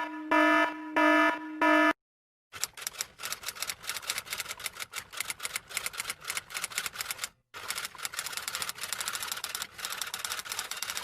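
A short electronic beeping, about four pitched beeps, then rapid clattering key clicks of fast typing in two long runs, broken by a brief gap.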